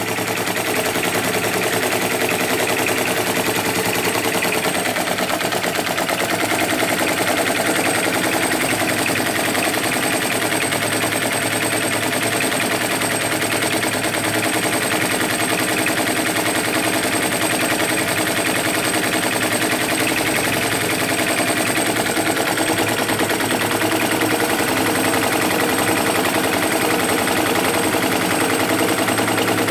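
Hu SH-02 flame-licker vacuum engine running, its cam-worked brass shim valve and crank making a rapid, even clatter that goes on without a break.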